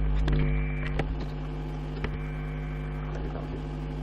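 Steady low electrical mains hum, with three sharp clicks in the first two seconds.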